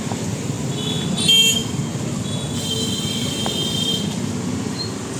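Traffic noise of a jammed road: a steady rumble of running vehicle engines, with a short, loud horn blast a little over a second in and a longer, fainter horn about three seconds in.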